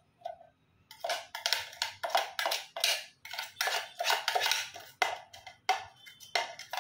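Irregular clatter of kitchen bowls and splashing water as raw chicken pieces are washed, a quick run of short sharp sounds starting about a second in.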